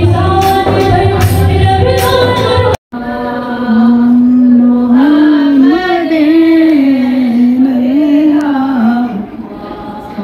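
Music with a steady bass beat, cut off abruptly about three seconds in. It is followed by a woman singing alone, unaccompanied, in a slow wavering melody that fades near the end.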